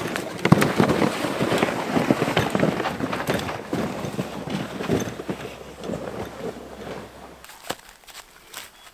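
Footsteps crunching through snow, a dense crackle of steps and snapping bits that drops away suddenly after about seven and a half seconds, leaving a few scattered crunches.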